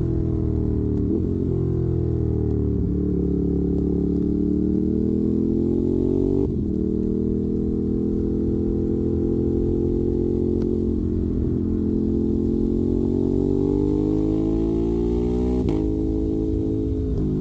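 Ducati Monster 821's L-twin engine breathing through a Termignoni exhaust, running under way with its note slowly rising and falling with the throttle. The note breaks off sharply and picks up again about six and a half seconds in and once more near the end.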